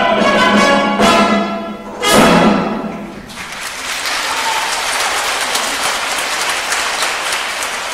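Orchestral music closing on a loud final chord about two seconds in that rings out, followed from about three seconds in by steady audience applause.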